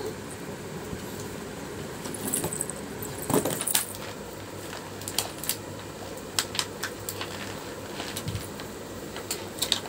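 Thin plastic tray crackling and clicking as a small child steps and shuffles on it, in scattered bursts.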